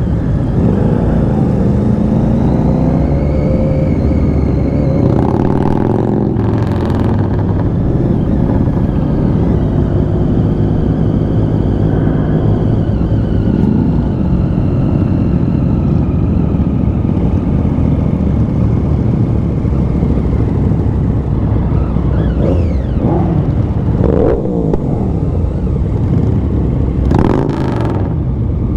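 Triumph Daytona 675's three-cylinder engine running as the motorcycle rides along in a group of bikes, its pitch rising and falling with the throttle. Two brief rushes of noise break in, about a quarter of the way in and near the end.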